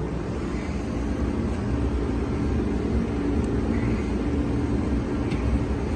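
Steady low mechanical rumble with a constant hum running underneath.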